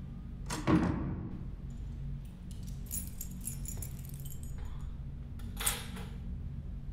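A steady low hum, with handling noises over it: a loud thump and rustle about a second in, light high clicks and jingles around three seconds, and another short rustle near the end.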